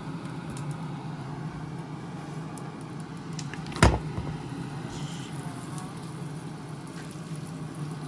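A single sharp thud about four seconds in as a block of butter lands in a hot nonstick frying pan, over a steady low hum.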